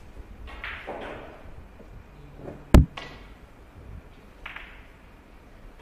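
A single sharp, loud click about three seconds in, with a few soft hissy rustles around it.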